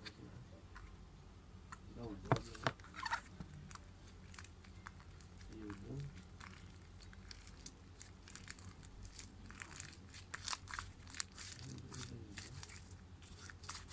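Homemade glue slime being squished and stretched by hand, with many small sticky clicks and crackles, a few faint murmurs between them.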